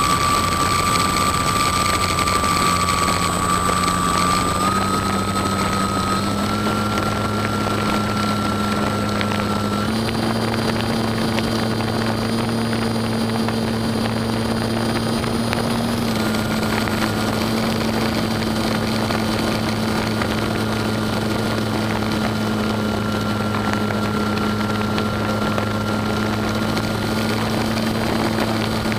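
Onboard sound of a Cap 232 model aerobatic plane's motor and propeller running steadily in flight: a constant drone and whine over air rush. The pitch steps up a few times in the first ten seconds and shifts again about sixteen seconds in.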